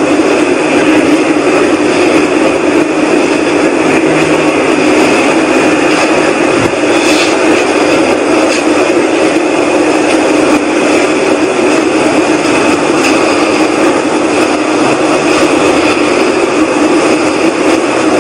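A loud, steady whooshing rumble from the sky, a cross between a whoosh and a rumble, that holds level without breaks. The recorder insists it is not aircraft noise.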